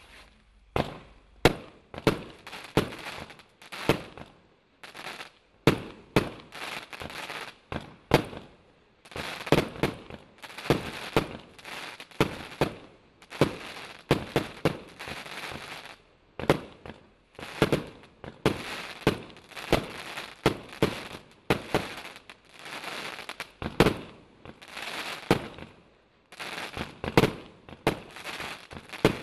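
Cosmic King Cobra firework barrage firing shot after shot: sharp bangs about once or twice a second, each trailed by a brief hiss of noise.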